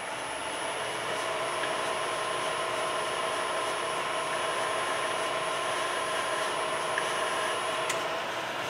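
Milling machine running steadily, a level mechanical hum with a thin high whine that cuts off with a click near the end.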